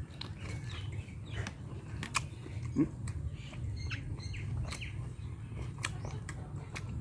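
A person chewing a mouthful of boiled pork fat, with small clicks, while birds chirp around. A short low call rises about three seconds in.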